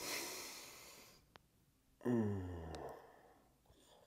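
A man's long breathy exhale, then a low voiced sigh that falls in pitch: a contented sigh after a sip of coffee.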